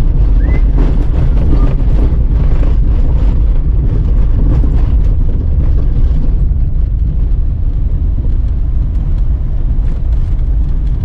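Vehicle driving on the road: a steady, loud low rumble of engine and road noise, with light rattles in the first half.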